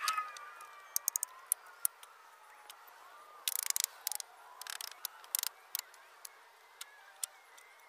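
Scattered light clicks and knocks from hand work on a wooden floor frame: a handful about a second in, then a denser cluster in the middle.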